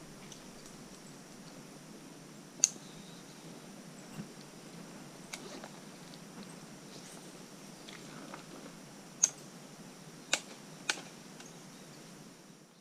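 A faint steady hiss broken by six sharp clicks, spread unevenly: one about two and a half seconds in, two around four to five seconds, and three close together between nine and eleven seconds.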